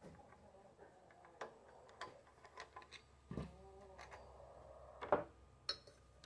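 Irregular metal clinks, scrapes and knocks as a screwdriver works on an old engine's carburetor and its round metal air-cleaner cover is taken off and handled. There is a ringing thump a little past halfway and a sharper, louder knock about five seconds in.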